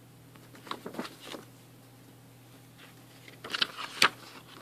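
Paper letters being handled and unfolded by hand: a few soft rustles about a second in, then louder crinkling of paper near the end with one sharp tick.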